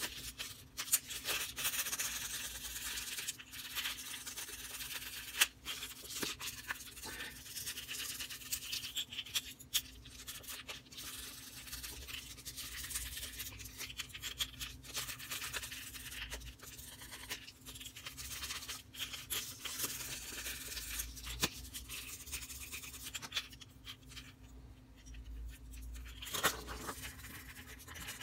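Fine 1500-grit sandpaper rubbing on the plastic body of a Heddon Super Spook Jr. fishing lure in short back-and-forth strokes, scrubbing off rust stains left by the old hooks. It is a soft, scratchy hiss with frequent small clicks, and it eases off briefly near the end.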